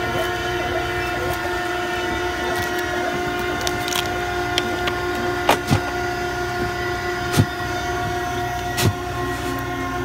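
Steady hum of an electric motor running, held at several fixed pitches, with a few sharp clicks and knocks from about halfway through.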